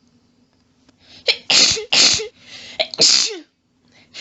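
A person sneezing in a rapid fit: three loud sneezes in quick succession starting a little over a second in, with a softer sneeze between the second and third, the last trailing off in a falling voiced sound.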